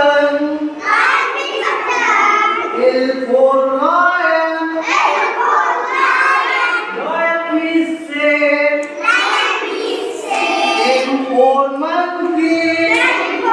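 Group of young children singing a song together in unison, an alphabet song, with held notes stepping up and down in pitch.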